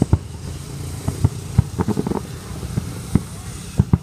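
Fireworks going off in quick, irregular succession: about a dozen sharp bangs with deep low thuds, bunched in a rapid cluster about two seconds in, over a steady low rumble.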